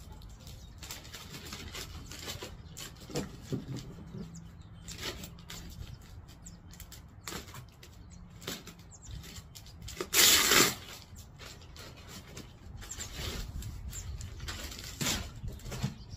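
Clear plastic packaging bag crinkling and rustling in irregular bursts as it is worked open and pulled off a throw pillow, with one louder burst of rustling about ten seconds in.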